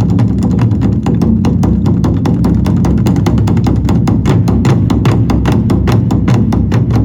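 Korean traditional drums beaten together by a band of drummers in a fast, steady run of strikes, several a second, with heavy low drum tone.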